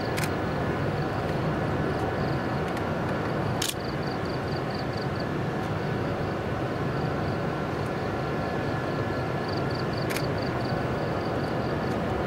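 Steady low mechanical drone with no change in level. Above it, a high chirping pulses about five times a second and fades in and out, and a few sharp clicks stand out.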